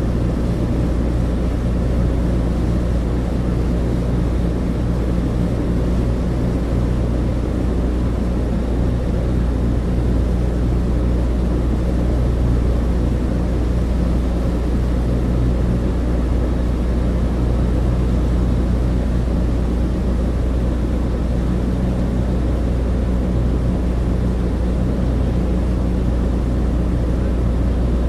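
Cabin sound of a Douglas DC-3: its two radial piston engines and propellers giving a steady, deep drone, heard from inside the cabin.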